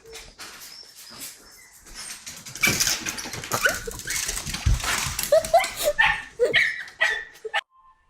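A dog vocalising in a string of short, high yelps and whimpers, each a quick rise and fall in pitch, over a louder noisy stretch in the middle.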